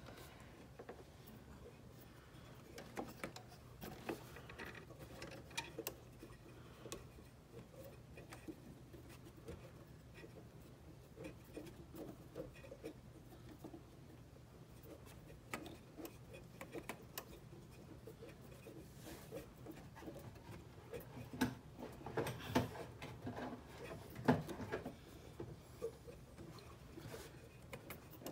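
Faint, irregular clicking and scraping of a mini tube cutter being turned around refrigerator tubing by hand, with a few louder knocks about three quarters of the way through. A low steady hum runs underneath.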